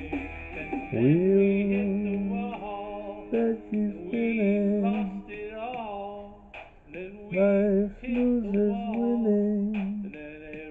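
A man's voice singing long wordless notes over a rock song playing back from a CD. The voice slides up about a second in and then holds notes with a wavering pitch.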